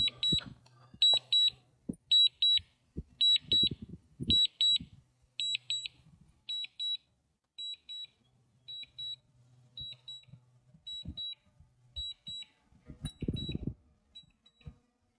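DJI drone remote controller sounding its landing warning while the drone auto-lands: pairs of high electronic beeps about once a second, growing fainter over the second half. Low handling thumps and rustles come through between the beeps.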